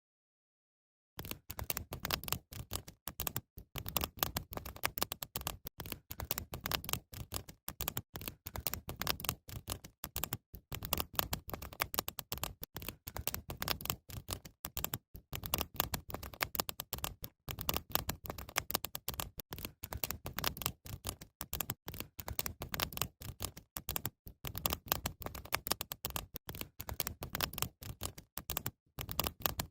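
Campfire crackling and popping: a dense, irregular stream of sharp snaps, starting about a second in.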